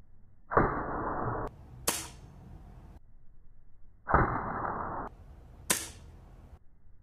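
Air rifle firing lead hollow point pellets into a clay block: two sharp cracks about four seconds apart. Each comes about a second after a muffled, drawn-out version of the shot lasting about a second, which sounds like a slowed-down replay.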